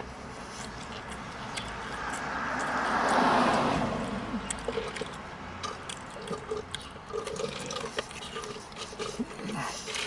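Close-up chewing of crunchy fried chicken tenders, many short sharp crunching clicks. A rushing noise swells and fades about three seconds in, the loudest part.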